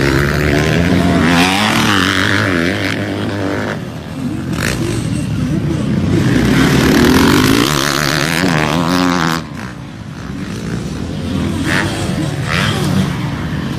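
Motocross dirt bike engines revving up and down as the bikes ride a dirt track. The engine sound changes abruptly about four seconds in and again after about nine and a half seconds.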